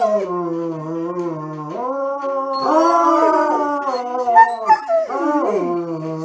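Treeing Walker Coonhound howling along to music in long, drawn-out notes. It holds a low note, rises about two seconds in to a higher held note, and slides back down near the end.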